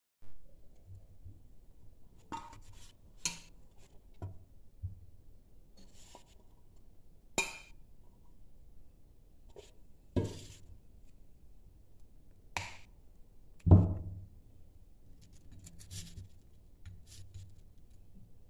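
Scattered clinks and knocks of stainless-steel kitchenware as grated coconut and green chillies are put into a steel mixer-grinder jar, some with a short metallic ring. The loudest, a heavier knock, comes about three-quarters of the way through.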